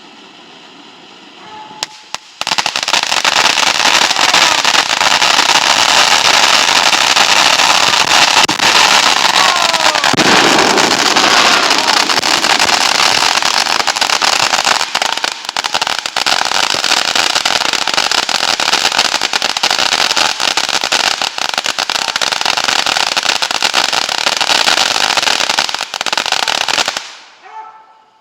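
Consumer fireworks crackling in a dense, unbroken rapid-fire of sharp pops. The crackle starts suddenly about two and a half seconds in, runs loud for over twenty seconds and cuts off shortly before the end.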